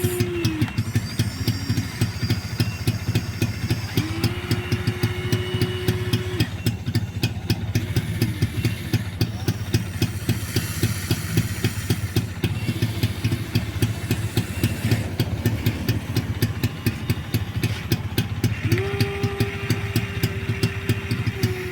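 Huina 1593 RC excavator running: its simulated diesel engine sound plays as a steady, fast chugging idle, and the whine of its small electric motors rises and stops several times as the arm or bucket moves, briefly about four seconds in and again near the end.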